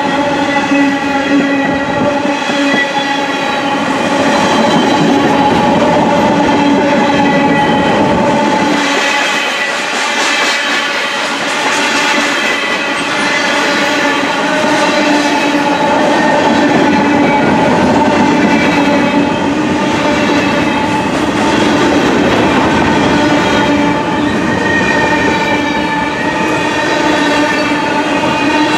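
A freight train's cars rolling past at close range, wheels rumbling and clattering on the rails, over a steady ringing tone.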